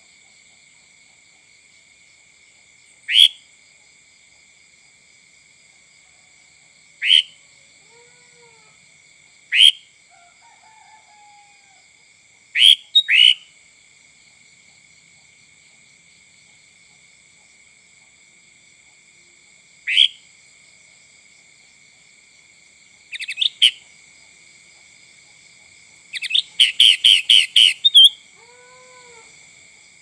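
Sooty-headed bulbul (kutilang) giving short, sharp rising call notes every few seconds, a quick double note about thirteen seconds in, then a fast run of about seven notes near the end. A steady, faint high-pitched drone runs underneath.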